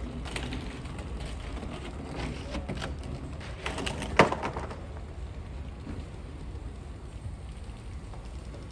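Outdoor background noise: a steady low rumble with scattered clicks, and one sharp knock about four seconds in.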